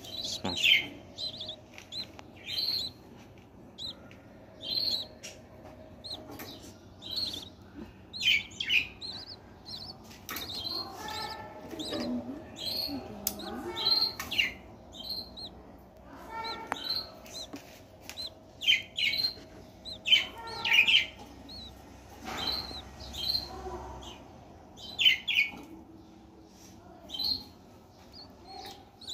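Budgerigars chirping: short, high calls repeated every second or so, with a few longer calls around the middle.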